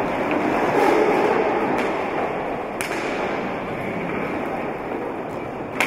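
Roller hockey play in a sports hall: a steady wash of crowd noise and skates rolling on the wooden floor, swelling about a second in. Two sharp clacks of stick and ball ring out, a faint one around the middle and a louder one just before the end.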